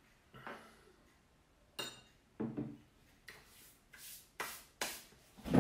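A drinking glass set down on a table with a short clink, followed by a brief throaty sound. Then hands rubbing together in several short strokes, and a low thump at the very end.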